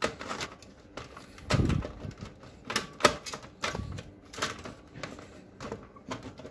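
Irregular clicks and knocks of plastic and sheet metal as the power supply unit of an HP LaserJet P2055dn laser printer is pushed and aligned into the printer's chassis. There is a duller thump about one and a half seconds in and a sharp click around three seconds.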